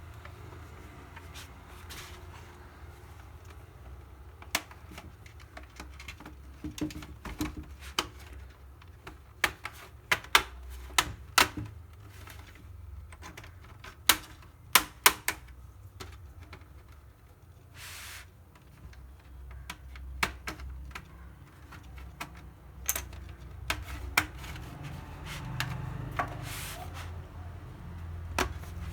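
Plastic case of a laptop being pried open with an opening tool: a string of sharp, irregular plastic clicks and snaps as the panel clips give, thickest and loudest about ten to fifteen seconds in, with a couple of brief scrapes later on.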